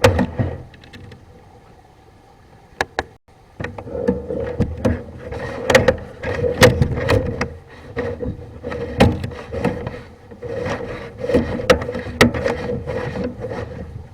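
A drain inspection camera and its push cable being worked down a vent pipe: repeated knocks, clicks and scrapes over a steady hum.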